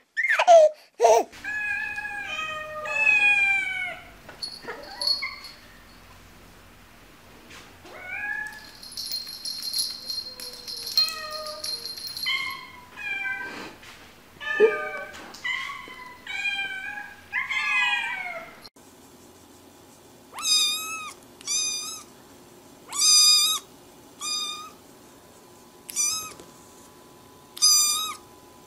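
Several cats meowing in a string of short clips, with drawn-out meows that slide up and down in pitch. Then a black kitten gives a run of short, high meows about once a second.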